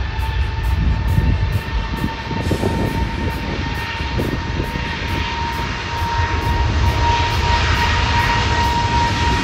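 Jet airliner's engines whining with a steady high tone, the broad roar building in the second half as the plane passes. Wind buffets the microphone with a low rumble throughout.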